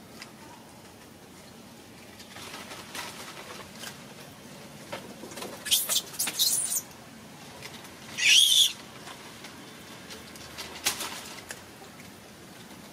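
Short high-pitched animal calls over a quiet background: a quick cluster about six seconds in, then a louder wavering call just after eight seconds, with a few fainter ones around them.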